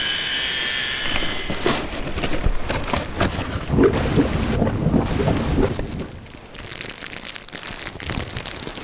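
Computer-generated ocean noise from an interactive sound installation: a continuous surf-like rush with a few high steady tones that fade out about a second and a half in. The noise surges louder and lower between about four and six seconds in, then drops quieter.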